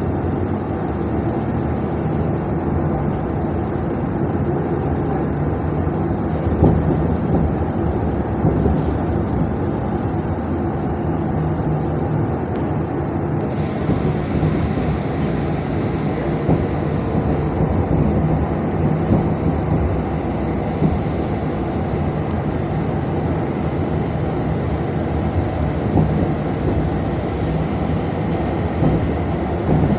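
UTTZ-6241-10-02 'Gorozhanin' trolleybus heard from inside while moving: steady running and road noise with a low hum, and a few brief clicks and rattles.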